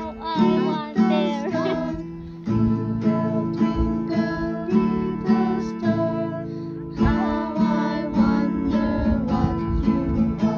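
Acoustic guitar strummed in a steady rhythm, chord after chord.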